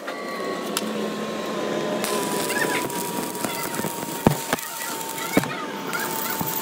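Electric arc welding, building up weld metal on the end of a broken axle shaft: a steady dense crackle with scattered sharp pops. A thin steady whine runs underneath and sinks slightly in pitch.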